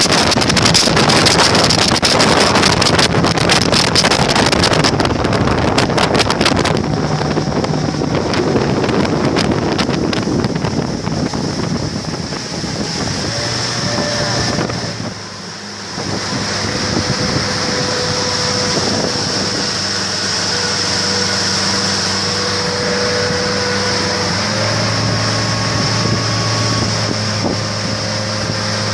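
Small motorboat under way at speed: engine hum with water rushing past the hull and wind buffeting the microphone. The wind gusts are heaviest in the first several seconds; about halfway through the sound dips briefly, then the engine drone runs steadier.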